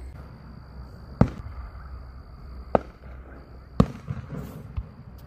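Aerial fireworks going off at a distance: three sharp bangs over a few seconds, the first and last loudest, then a couple of smaller pops near the end.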